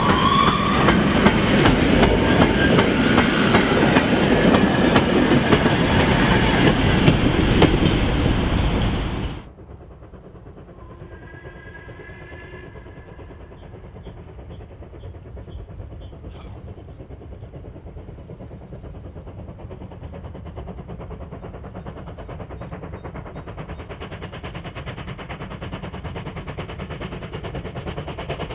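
Four-wheeled goods vans of a steam-hauled freight train rumbling and clattering past close by, cut off abruptly about nine seconds in. After that, a distant steam locomotive working a freight train, a low rumble that slowly grows louder as it approaches.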